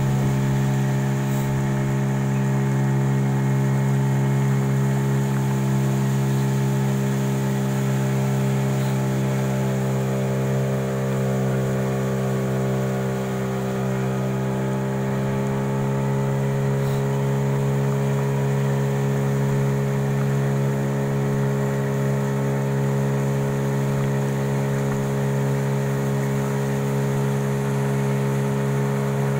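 A boat's outboard motor running steadily at cruising speed, with the pitch easing down slightly about halfway through and then climbing back.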